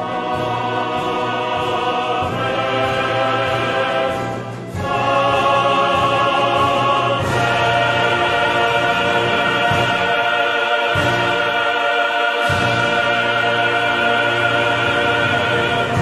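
Classical choral music: a choir with orchestra holding long, wavering sung notes, growing louder about five seconds in.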